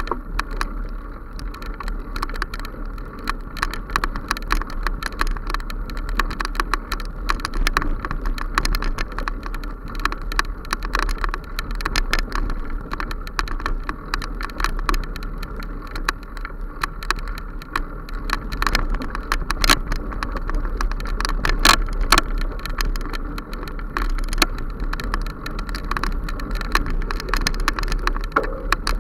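Bicycle ridden along a bumpy forest dirt track: steady tyre and wind noise with frequent sharp rattles and knocks as the bike and camera mount jolt over the ground.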